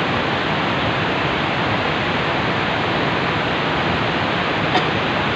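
Fast-flowing muddy river water rushing with a steady, even noise, with one brief click near the end.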